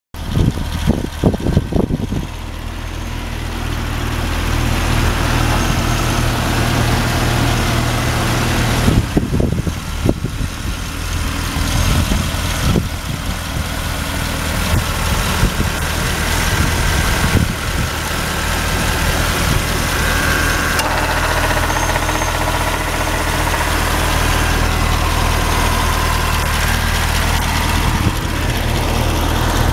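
A 2012 Chevrolet Camaro SS's 6.2-litre V8 idling steadily, heard close up with the hood open. There are short, louder, uneven stretches about a second in and again around nine to ten seconds in.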